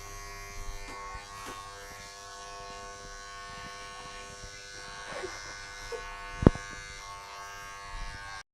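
Steady hum of a small electric motor running, with one sharp click about six and a half seconds in.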